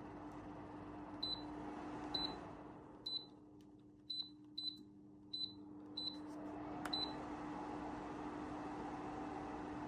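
JERVAMNI bladeless tower fan beeping eight times as its control settings are pressed, a short single-tone beep with each press. Its motor hum and airflow die down after the second beep and build back up again from about six seconds in as the speed is changed.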